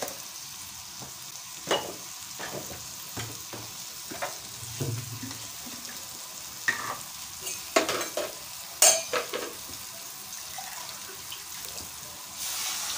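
Meat, onion and tomato masala sizzling as it fries in an aluminium pot, with a steel ladle clinking and scraping against the pot now and then. Near the end a louder hiss sets in as water is poured into the pot.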